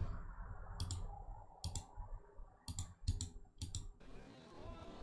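Clicking of a computer keyboard, in about six short clusters of two or three sharp clicks each, stopping about four seconds in.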